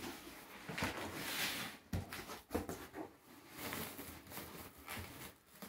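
Packaging being handled while unboxing a large speaker: plastic bag wrapping rustling and polystyrene packing and the cardboard box being moved, with a few soft knocks about two seconds in.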